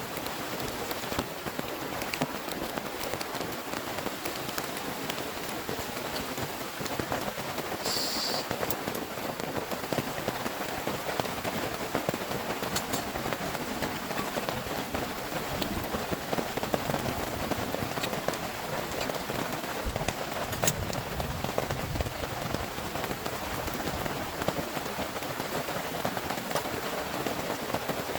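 Heavy rain falling steadily, with many individual drops striking a surface close to the microphone as sharp ticks.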